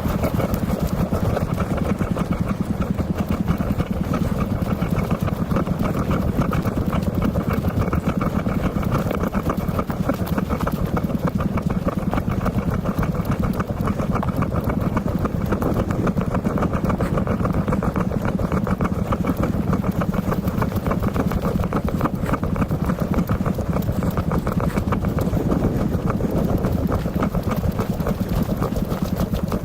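A motor vehicle's engine running steadily, a dense low rumble with fast even pulsing that does not change much.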